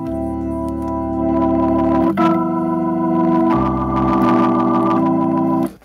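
Hammond organ playing four held chords in turn, each changing cleanly to the next, then cutting off suddenly near the end.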